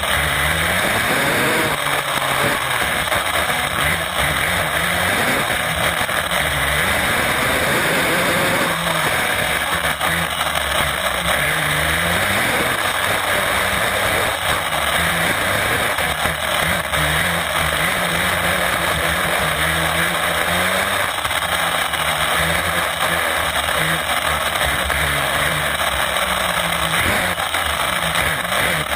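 HPI WR8 Flux 1/8-scale brushless electric RC rally car driving, heard from on board: a motor and gear whine that rises and falls over and over with the throttle, over a steady rush of tyre and road noise.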